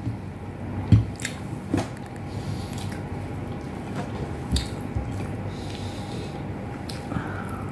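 Close-up mukbang eating sounds: a person chewing rice and beef with eggplant, with wet mouth smacks and a few sharper clicks about 1, 2 and 4.5 seconds in, over a steady low hum.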